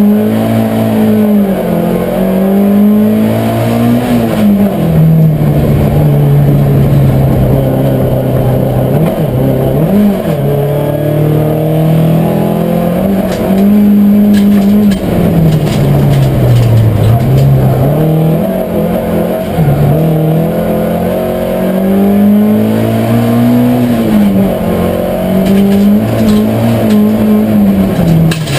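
Ford Sierra rallycross car's engine at racing pace, heard from inside the cabin: the revs climb and fall again and again as the driver accelerates, lifts and shifts, with the deepest drop about halfway through.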